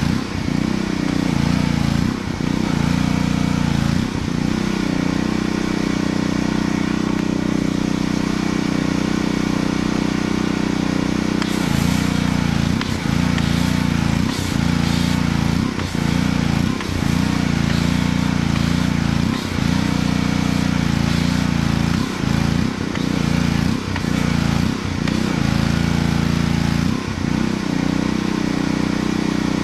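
Pressure washer running steadily while foam is sprayed onto a muddy side-by-side, its drone dipping briefly every second or two, with spray hiss added from about twelve seconds in.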